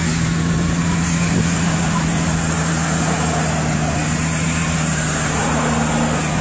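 Car engine held at steady high revs under heavy load, pulling against a chained vehicle in a tug of war, with tyres spinning on dry grass and dirt.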